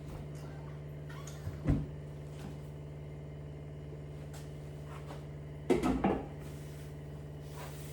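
Kitchen clatter: a single knock about two seconds in and a short run of clattering around six seconds in, over a steady low hum.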